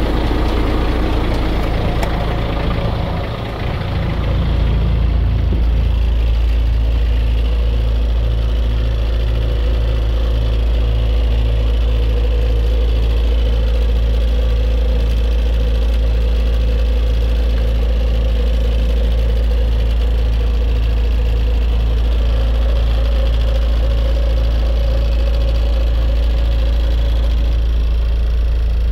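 Renault G300 fire truck's diesel engine idling steadily at about 600 rpm, with an even, rhythmic low throb. The level dips briefly about three seconds in.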